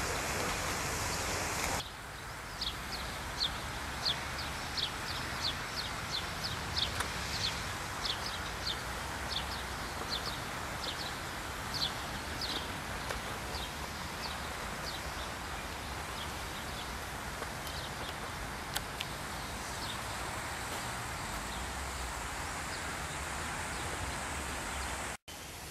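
A steady hiss that stops suddenly about two seconds in. Then birds chirp outdoors in short, high notes, several a second at first and thinning out after the middle, over a low background rumble. The sound drops out briefly near the end.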